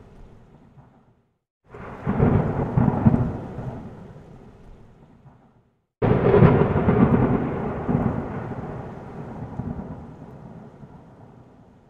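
Thunder: a rumble dying away, then a second rolling peal about two seconds in that fades out. About six seconds in comes a sudden sharp crack of thunder that rolls on and slowly dies away.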